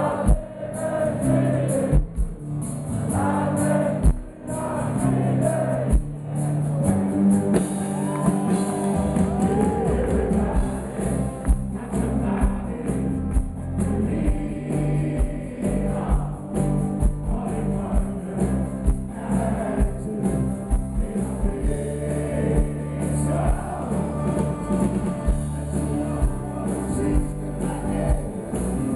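Live rock band playing with drums, electric and acoustic guitars and keyboard, with singing over a steady beat.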